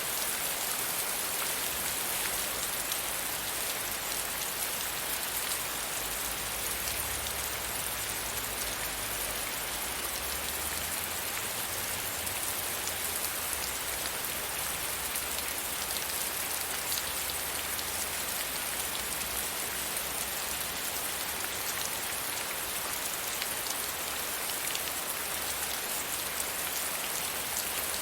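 Light rain shower falling steadily: an even hiss of many small drops that does not let up.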